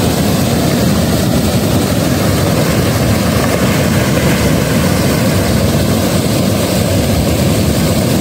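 Steady, loud rushing and churning of water surging up in domes from submerged outlets into a hydroelectric plant's regulating pond, deep and without a break.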